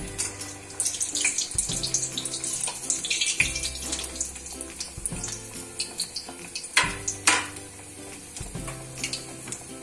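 Grated-potato fritter deep-frying in hot oil in a steel kadhai, giving a steady crackling sizzle with many small pops and two louder cracks about seven seconds in. Ukulele background music plays under it.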